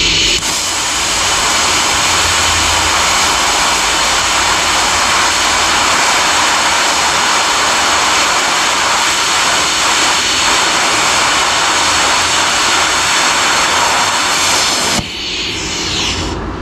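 Lift-TIG welding arc from a YesWelder Flux 135 Pro torch, burning stainless steel filler rod onto galvanized mild steel: a loud, steady hiss that starts about half a second in and cuts off abruptly about a second before the end, leaving a fainter hiss.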